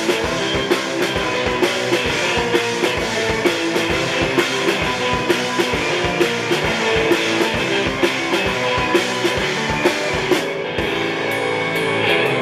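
Live rock band playing an instrumental passage without vocals: a drum kit keeps a steady beat, about two hits a second, under distorted electric guitars.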